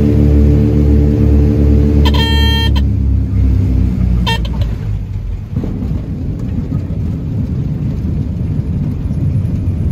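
Twin piston engines of a light aircraft throttled back for landing, their drone falling in pitch and fading. A cockpit warning horn sounds for under a second about two seconds in, with a short beep a little later. The aircraft then rolls out on the runway with a rough, even rumble.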